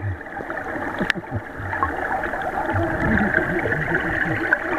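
Muffled, steady rush of churning water with a constant bubbling and gurgling, heard underwater beneath a waterfall.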